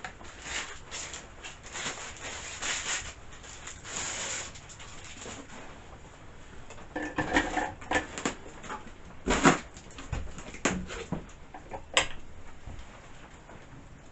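Hands handling and fitting chainsaw parts: irregular clicks, knocks and rustles of plastic and metal, with a heavier thump about nine seconds in and a sharp click about twelve seconds in.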